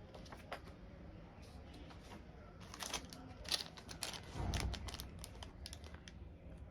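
Unboxing handling: packaging crinkling and rustling, with scattered light clicks and a dull thump about four and a half seconds in.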